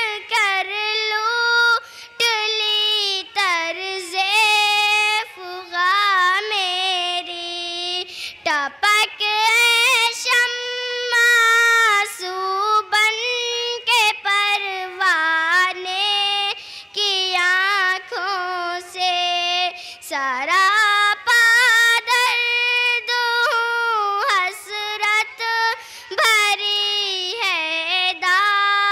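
A young girl singing an Urdu nazm unaccompanied, amplified through a microphone, in melodic phrases with short breaths between them.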